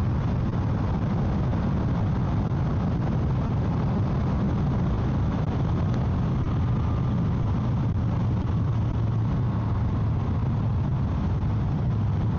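Motorcycle riding at a steady speed: a constant low engine drone mixed with wind rush around the rider's helmet, with the helmet vents closed.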